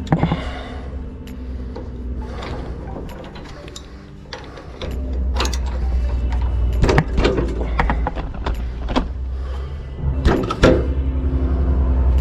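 Hand tools clicking and knocking on metal while the old spark plug is taken out of a small four-stroke engine, with a steady low hum underneath. The clicks come thickest from about five seconds in.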